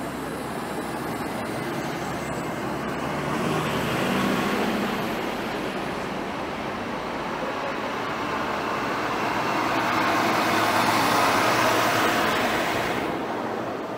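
Engine and road noise of passing vehicles, swelling twice, about four and eleven seconds in, and cutting off suddenly near the end.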